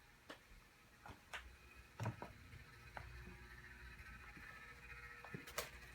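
Quiet room with a few faint, scattered knocks and clicks, over a faint steady hum that sets in about two seconds in.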